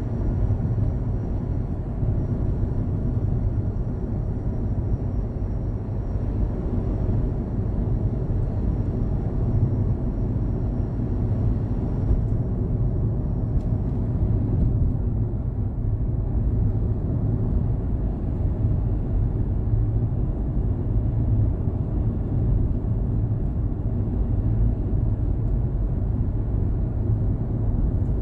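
Daihatsu Hijet Cargo van's engine running steadily with a low rumble.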